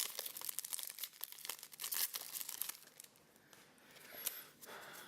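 Foil booster-pack wrapper crinkling and tearing as it is pulled open. The crackle is dense for about the first three seconds, then thins out to a few scattered rustles and a click.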